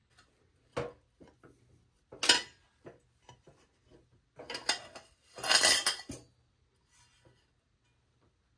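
Metal camp cookware knocking and clattering against a steel lunch box as it is unpacked and set in place. A single knock comes near the start, the loudest about two seconds in, then a longer run of clattering from about four and a half to six seconds in.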